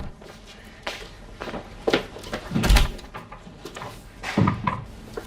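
A few separate knocks and thuds, the heaviest and deepest about two and a half seconds in.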